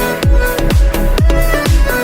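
Electronic dance music with a steady kick drum, about two beats a second, under sustained synth tones.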